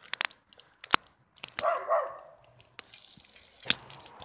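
BMX bike clattering over sticks on a dirt trail: a series of sharp clicks and knocks, with a short yelp-like cry about one and a half seconds in.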